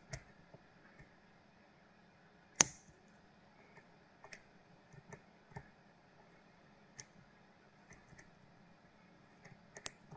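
Lock pick and tension wrench working the pins of a Kale Kilit 164 BNE pin-tumbler lock: scattered small clicks at irregular intervals, one much louder click about two and a half seconds in.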